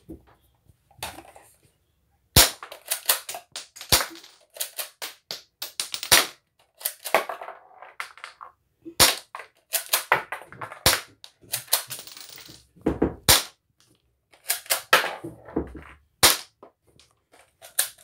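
Transparent toy Colt 1911 soft bullet pistol fired shot after shot without its suppressor, emptying the magazine. There are about seven sharp snaps with clusters of plastic clicking and rattling between them.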